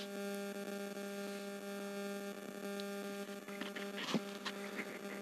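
Steady electrical hum, a low buzz with even overtones, with a few faint ticks near the end.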